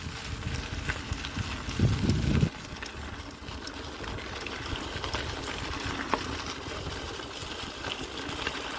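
Wind buffeting the microphone outdoors, with one strong low gust a little under two seconds in, over a steady rushing background with scattered faint ticks.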